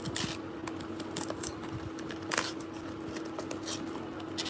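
Several short clicks and rustles of a cosmetic product's packaging being handled and opened, the sharpest about two and a half seconds in, over a faint steady hum.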